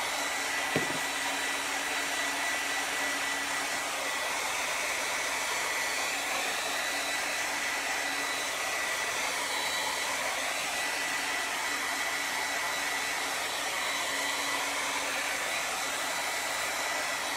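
Handheld hot-air dryer blowing steadily, a rushing of air with a thin high whine, drying freshly applied chalk paste.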